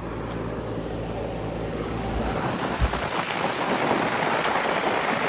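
Ameristar heat pump outdoor unit running: a steady rush of air from the condenser fan over a low hum from the Copeland scroll compressor. About three seconds in, the hum drops away and the air rush gets slowly louder.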